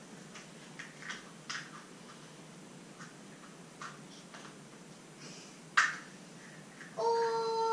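Scattered light clicks and rattles of a plastic surprise egg being handled and twisted open, with one sharper click about six seconds in. Near the end a child starts singing a held note.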